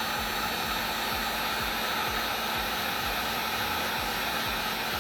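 Hot-air heat gun blowing steadily, warming a phone's charging-port board so it can be pried free.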